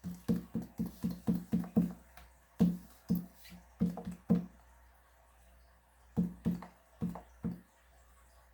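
Background music: one low plucked note repeated about three to four times a second, pausing about halfway through, coming back briefly, then stopping before the end.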